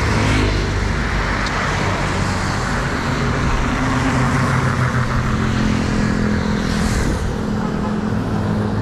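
Road traffic: a motor vehicle's engine running close by, its pitch shifting, over a steady rush of road noise.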